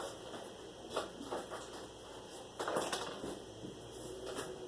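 Faint handling noises: a few light clicks about a second in, then a short rustling scrape near the middle.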